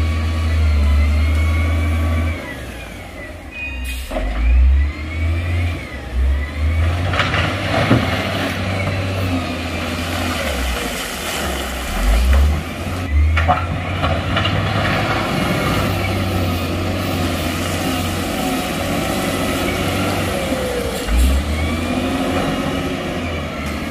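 Heavy diesel engine of construction machinery running with a deep rumble and rising and falling revs, with a few sharp knocks.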